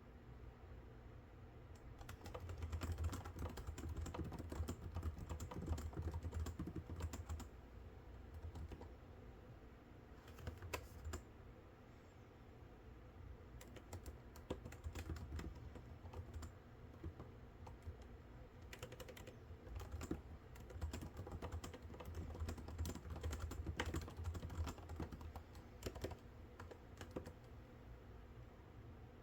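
Typing on a computer keyboard in runs of quick keystrokes, with short pauses between the runs.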